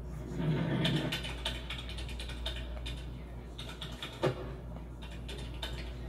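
Rapid clicking of typing on a computer keyboard, with one sharper, louder click about four seconds in.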